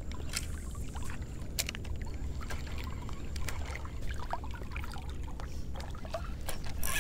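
Shallow water lapping and sloshing around a wading angler, over a steady low rumble, with scattered small clicks and drips. Right at the end a loud rushing hiss sets in.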